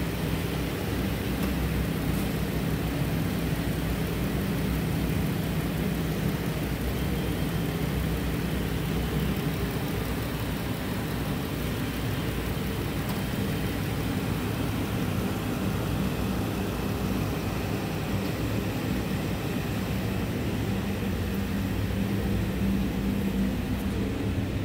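2013 Chrysler Town & Country's 3.6-litre Pentastar V6 idling steadily.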